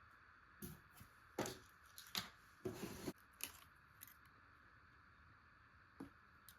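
A run of light clicks, taps and short scrapes from small hard objects being handled, bunched in the first few seconds, with one more click near the end, over a faint steady hiss.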